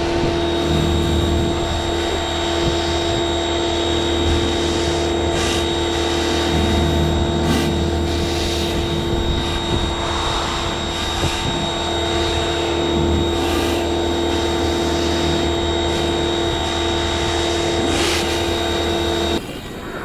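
Sun Joe electric pressure washer running steadily with a held whine while the Ryobi 12-inch surface cleaner's spinning jets hiss against concrete. It cuts off suddenly near the end.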